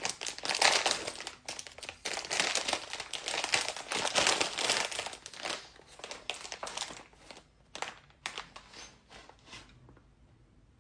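Plastic packaging crinkling as it is handled and torn open: dense crackling for several seconds, then fewer, separate crinkles that die away.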